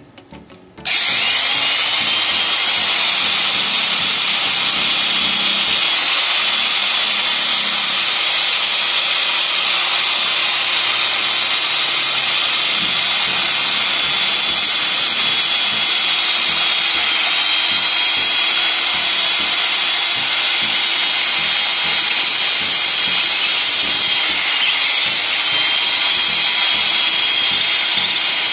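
Corded electric drill starting about a second in and running steadily at full speed with a high whine, its bit boring into a masonry wall.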